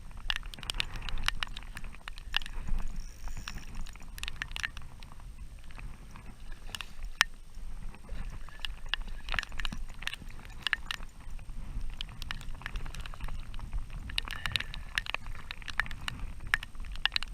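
Irregular knocks and splashing as an oversized redfish is fought alongside a kayak and landed, over a steady low rumble.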